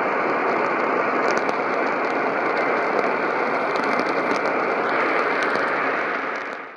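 Radio static: a steady hiss with scattered faint crackles from a receiver with no clear signal, fading out sharply at the very end.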